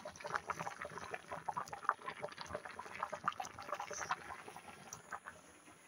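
Pot of rice boiling, with rapid irregular bubbling and popping.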